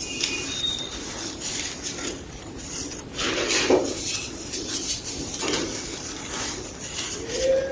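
Soft, dusty gym chalk block being crushed, giving dry crunching and crumbling sounds in irregular bursts about a second apart.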